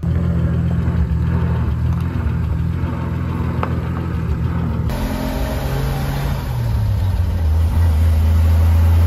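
Engine of a vintage Chevrolet 3600 pickup truck running as it drives past. About five seconds in the sound switches to the engine heard from inside the cab on the road, a low steady drone that grows louder near the end.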